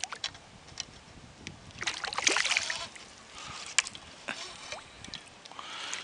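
Water splashing with scattered light clicks and knocks as a hooked smallmouth bass is reeled up beside a kayak, in a burst about two seconds in and again near the end.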